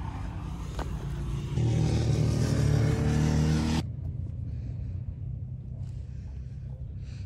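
A motor vehicle's engine accelerating past, its low drone rising slightly in pitch and growing louder, cut off abruptly about four seconds in. After that only quieter wind noise remains.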